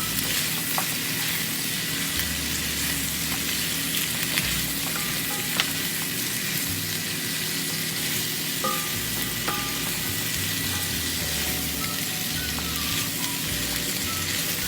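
Kung Pao chicken sizzling in a hot nonstick wok as it is stir-fried with tongs: a steady frying hiss with a few light clicks.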